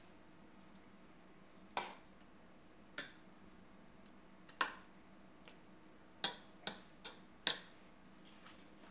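A metal fork tapping and clinking against a slow cooker's insert while sauce is spread over chicken: about eight or nine sharp, irregular clicks, several in quick succession in the second half.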